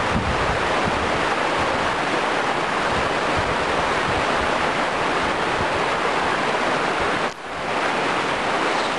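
Steady rushing of flowing cave-river water, with wind buffeting the microphone underneath. The noise dips sharply for a moment about seven seconds in.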